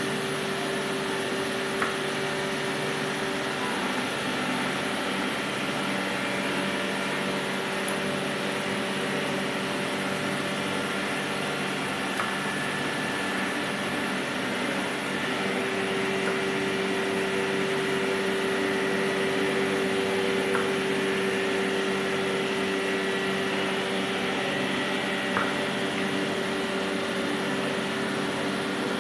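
Steady hum of tyre-workshop machinery, a motor-like drone with a few faint clicks. The drone grows a little stronger about halfway through.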